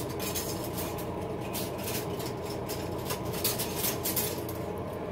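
Faint scrapes and clicks of a spoon moving in a slow-cooker crock full of thick chili, over a steady low hum.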